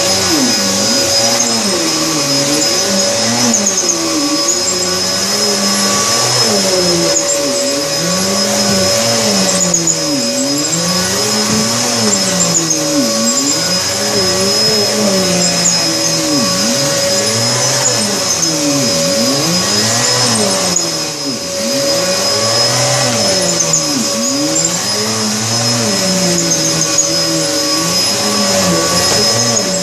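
Vacuum cleaner running steadily with a high motor whine, pushed back and forth over carpet so its sound swells and falls with each stroke. The sound dips briefly about two-thirds of the way through.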